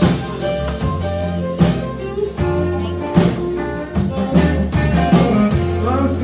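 Live country band playing an instrumental passage: fiddle bowing a melody over acoustic and electric guitars, electric bass and a steady drum kit beat.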